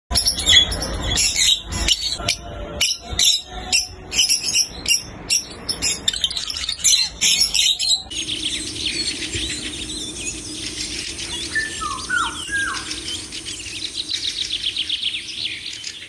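Parrots calling: short, sharp squawks repeated through the first half, then a faster stream of high chirps over a steady low hum, with a few lower falling notes in between.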